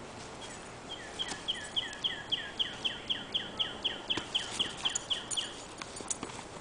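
A songbird singing a long, even run of quick repeated downslurred chirps, about four a second. It starts about a second in and stops shortly before the end.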